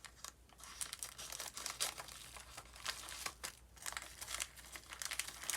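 Packaging of a paint-by-numbers kit being handled and opened: irregular crinkling and rustling with a few sharper tearing crackles.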